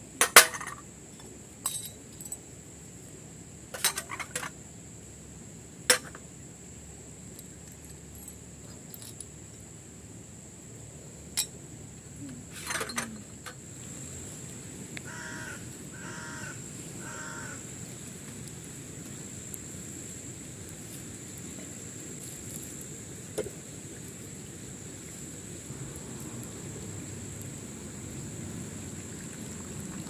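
Tea glasses and saucers clinking against a metal tray several times as they are set down, then a crow cawing three times in quick succession, over a steady high-pitched whine.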